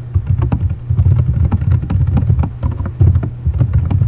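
Typing on a computer keyboard: a quick, irregular run of keystrokes over a steady low electrical hum.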